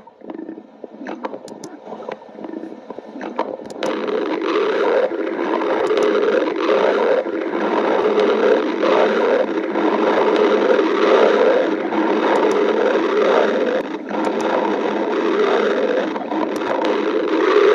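A person's stomach growling and gurgling continuously, in uneven rumbling swells that get louder about four seconds in.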